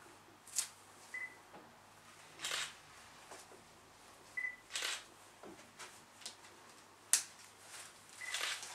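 Fabric rustling as a knitted top is worked over a full-arm cast: about five short swishes a second or two apart, with a few very brief high squeaks between them.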